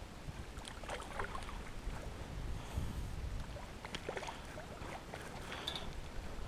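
Low, steady rumble of wind and water around a small fishing boat, with a few scattered light clicks and rattles.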